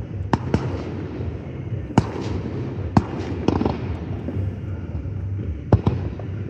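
Aerial fireworks going off in a finale barrage: sharp bangs every second or so, two close together near the end, over a continuous rumble and crackle of shells bursting.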